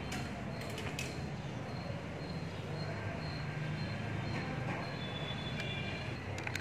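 Steady low background rumble with a few faint clicks near the start and near the end.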